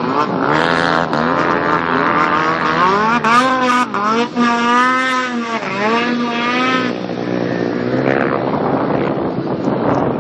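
Snowmobile engine at high revs as the sled skims across open water, the pitch rising and falling several times, highest in the middle of the stretch.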